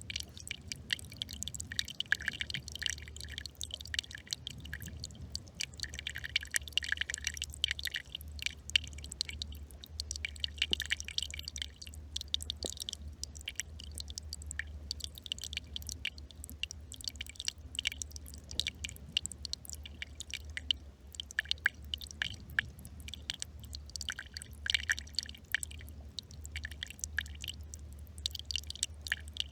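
A small brook trickling and bubbling, a dense continuous patter of little water clicks and drips, with a low steady rumble underneath.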